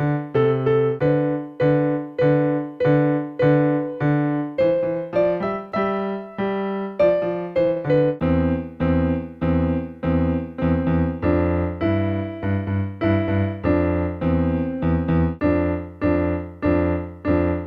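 Electronic keyboard played with both hands in a steady, even rhythm of repeated short notes, as a practice exercise in which each hand plays a different note value. About eight seconds in, lower bass notes join.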